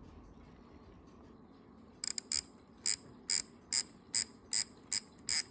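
Copal RD-700 flip clock's mechanical flip display clicking as its number flaps fall over one after another in quick succession. After a faint hum at first, the crisp clicks start about two seconds in and keep an even pace of about two or three a second.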